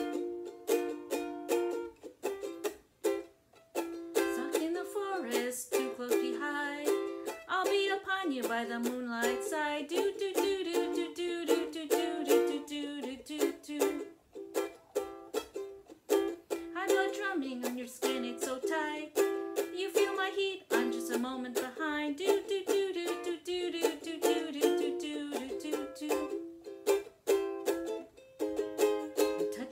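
Ukulele strummed in a steady rhythm, playing barred chords in the key of C.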